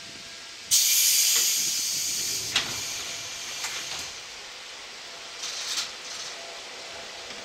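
Compressed air hissing out of a stopped electric train's pneumatic equipment: a sudden loud burst that fades over about two seconds. A few sharp clicks follow, then a second, shorter hiss.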